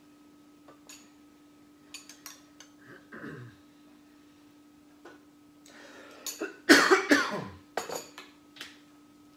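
Light clinks and taps of cutlery and dishes at a dinner table while tacos are put together. About six and a half seconds in comes a loud, rough burst lasting about a second, the loudest sound here.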